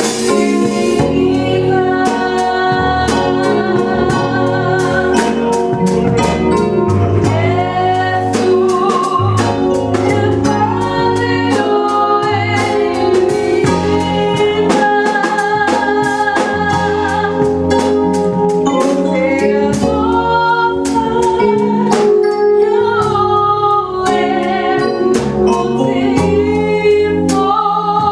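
A woman singing live, accompanying herself on an electronic keyboard, with a drum kit keeping a steady beat with cymbal strikes.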